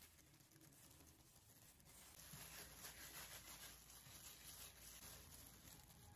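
Near silence with faint rustling and rubbing of plastic disposable gloves as hands scoop and roll soft ube pastillas dough into a ball.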